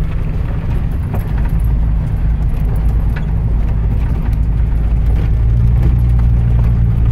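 An RV's engine and tyres heard from inside the cab while it drives on a gravel road: a steady low drone with light scattered rattles, the engine note growing a little stronger about five seconds in.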